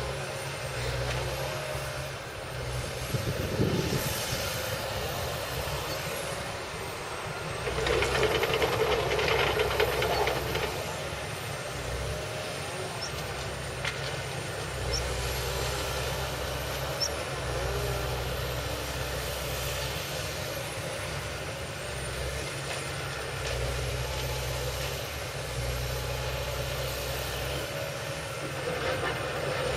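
Excavator's diesel engine running under load, its low drone strengthening and easing in spells as it works, with louder stretches about 4 seconds and 8 to 10 seconds in.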